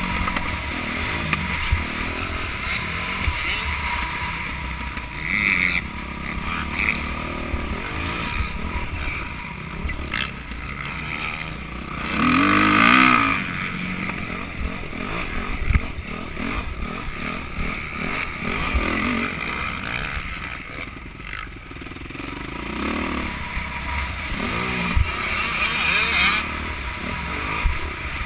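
Motocross dirt bike engine revving up and down over and over through the gears, heard from the rider's helmet camera over a rushing noise. The hardest burst of throttle comes about halfway through.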